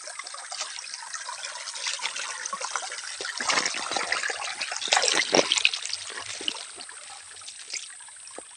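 Shallow rocky stream trickling and running over stones, with a few louder splashes around the middle.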